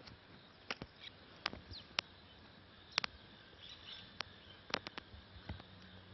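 Outdoor ambience with faint bird chirps over a light insect hiss, broken by about a dozen sharp, brief clicks and taps at uneven intervals.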